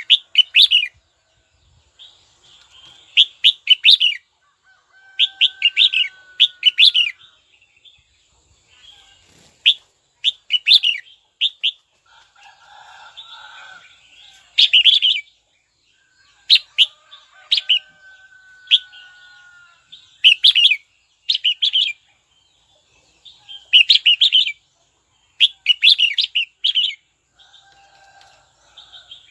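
Red-whiskered bulbul singing: short, bright, chattering phrases repeated about every two seconds, with a fainter, lower whistle drawn out now and then between them.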